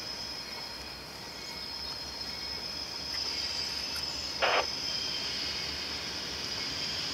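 A steady, high-pitched insect chorus, with a low rumble from an approaching train slowly growing louder underneath. A short, sharp sound cuts in once about four and a half seconds in.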